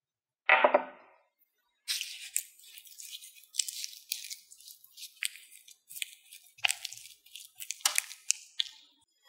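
A single knock about half a second in, then a long run of crisp crackling and tearing in short, irregular bursts, as a thin dry sheet is crinkled and torn by hand.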